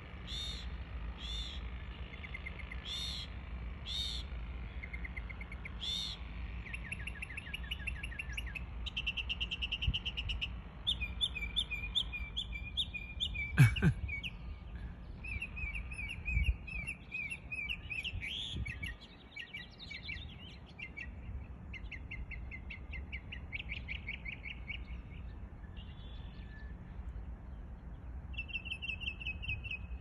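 Mockingbird singing a long run of borrowed phrases, each repeated several times before it switches to the next: clear down-slurred notes at first, then fast trills and buzzy runs. A single sharp knock about halfway through.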